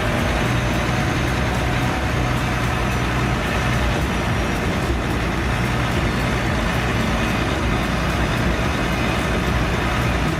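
A heavy truck's engine running steadily, a constant low drone.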